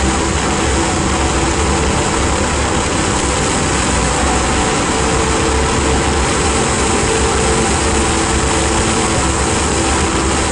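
Ambient drone-noise music: a dense, unbroken wall of hiss with several held low-mid tones and a steady low rumble underneath.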